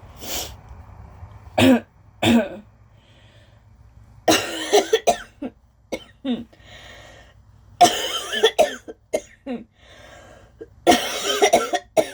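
A woman coughing hard in repeated fits: a couple of single coughs, then three bouts of several quick coughs each, a few seconds apart.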